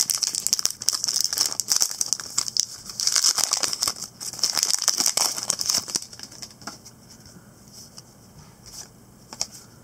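Foil wrapper of a trading-card pack crinkling and tearing as it is ripped open by hand. About six seconds in it goes much quieter, leaving a few soft clicks as the cards are slid out of the pack.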